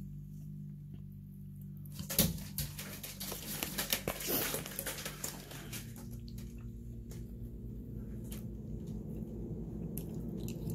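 A plastic spoon clicking and scraping against a dish of macaroni and cheese for a few seconds, then quieter chewing, over a steady low hum.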